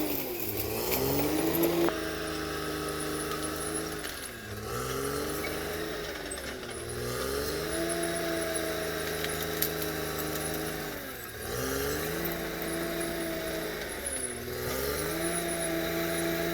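CAT D6R XL bulldozer's diesel engine running, its pitch sagging several times as it lugs down under load and then climbing back to speed.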